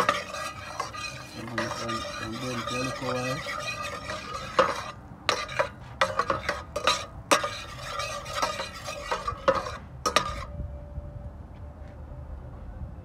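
A spoon stirring curry into sizzling butter in a pot, with a run of sharp clinks and scrapes against the pot in the middle, then quieter sizzling near the end.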